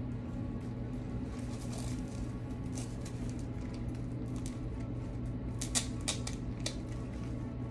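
Artificial flowers being handled, with light rustling and small clicks, and a few sharper clicks in quick succession about six seconds in, over a steady low hum.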